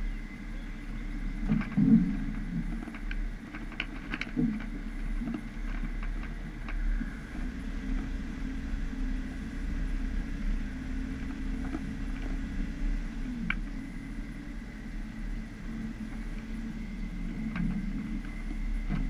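A vehicle engine running steadily, its pitch shifting a little, with scattered knocks and clatter; the loudest knock comes about two seconds in.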